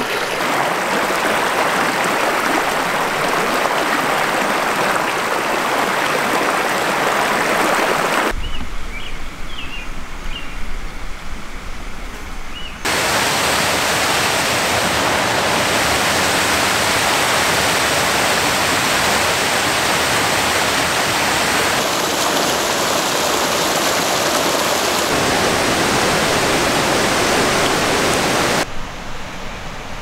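Steady rush of a small mountain creek tumbling over rocks and a small waterfall. A quieter stretch in the middle carries a few faint, short high chirps before the loud rush returns.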